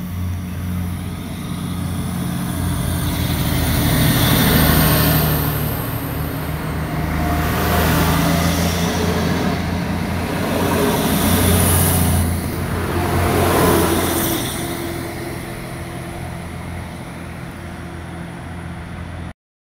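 Diesel passenger multiple unit running past on the track: a steady low engine drone with wheel-on-rail noise that swells twice as the cars go by. The sound cuts off abruptly near the end.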